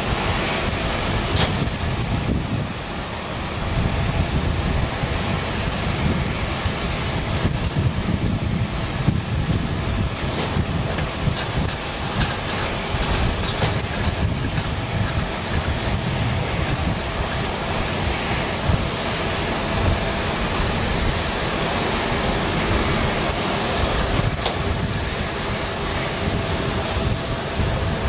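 Jet aircraft noise: a steady whine with a high, thin whistle over a low rumble.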